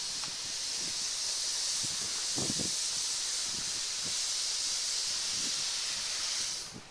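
Small Hunslet quarry steam locomotive pulling away with a goods train, steam hissing steadily from around its cylinders, with a few faint low beats beneath. The hiss cuts off suddenly near the end.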